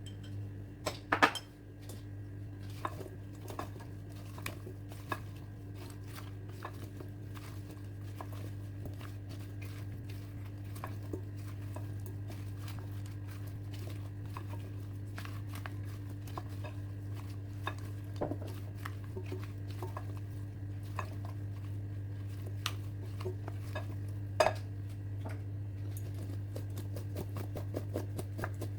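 Seasoned potatoes and vegetables being mixed and tossed in a bowl: repeated clinks, knocks and scraping of a utensil against the bowl, with two louder knocks about a second in and near the end. A steady low hum runs underneath.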